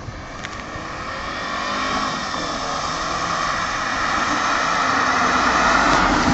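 Mercedes-Benz AMG coupe approaching: a steady engine note with tyre noise that grows steadily louder as it nears, easing off near the end.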